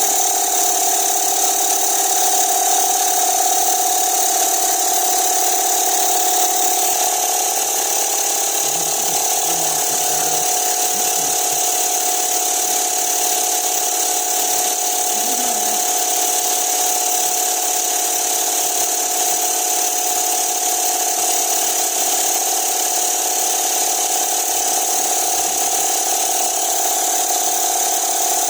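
Steady industrial machinery noise: a constant mid-pitched hum over a loud high hiss, with no change in level.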